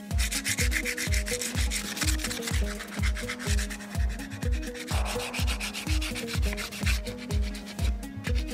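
Sandpaper rubbed back and forth over the wooden stock of a traditional speargun, a scratchy hiss that stops about seven seconds in. Background music with a steady beat plays throughout.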